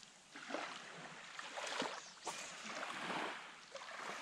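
Small waves lapping and washing softly onto a sandy beach, swelling and fading every second or so, with a few faint crackles.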